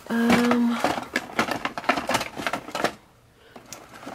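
Plastic blister packs and cardboard boxes rustling and clicking as they are handled and shifted about, after a brief held vocal hum at the start.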